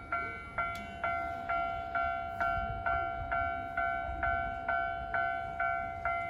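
Japanese railway level-crossing warning bell ringing, an electronic bell strike repeating about twice a second, each ringing on until the next; it signals that the crossing is closed for an approaching train.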